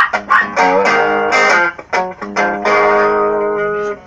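Electric guitar played through a small practice amp: a quick run of picked notes and strummed chords, with one chord left ringing for about a second before it is cut off near the end.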